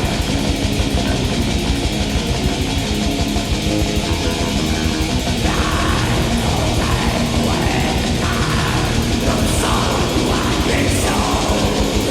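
Black metal played on a lo-fi demo recording: fast, dense drumming under a wall of distorted guitar. A harsh shrieked vocal comes in about halfway through.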